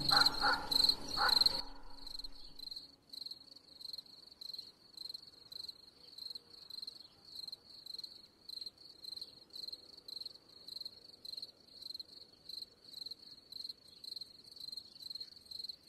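A cricket chirping steadily, a high chirp about twice a second, with the tail of a piano-like music phrase dying away in the first second and a half.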